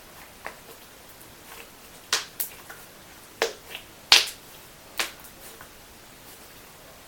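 Butter slime being pressed and poked, giving a handful of sharp clicks and pops at uneven intervals, the loudest a little after the middle.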